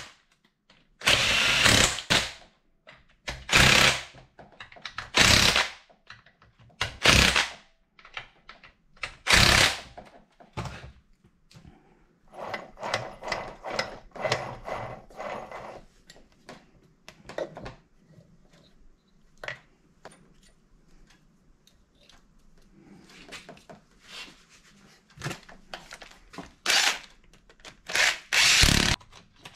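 DeWalt cordless drill with a socket extension running down the 12 mm crankcase nuts of a two-stroke engine in short bursts: about five in the first ten seconds, then quieter metallic clicking and rattling, and two more bursts near the end.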